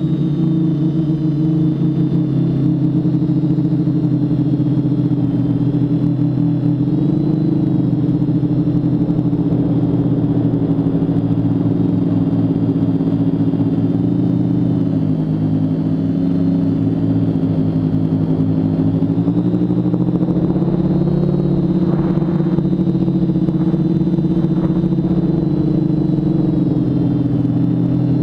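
Quadcopter in flight: its four brushless motors and 10x4.5 propellers hum steadily, the pitch rising and falling slightly with throttle, over a rush of wind and propeller wash.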